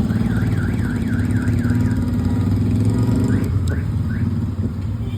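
An electronic alarm warbling in quick repeated rising-and-falling sweeps, about three a second, breaking off and then sounding a few more sweeps near the end. Over a steady engine running underneath that drops away a little over halfway through.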